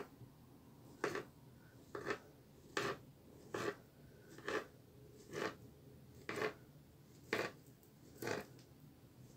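Kitchen knife slicing a peeled banana into rings on a plastic cutting board: the blade taps the board sharply about once a second, nine times.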